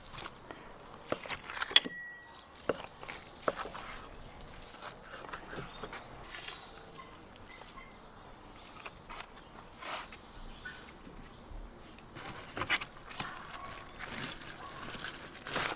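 An insect's high-pitched steady buzz sets in about six seconds in and keeps on, over scattered light clicks and knocks.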